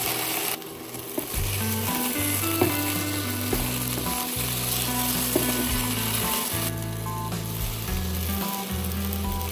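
Raw potato slices sizzling as they fry in hot oil in a nonstick pan, with a wooden spatula scraping and turning them and a few sharp clicks. Background music plays underneath.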